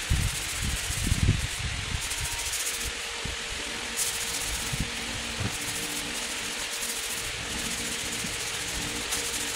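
Wood lathe running with a steady hum and hiss, with a few low handling thumps in the first couple of seconds.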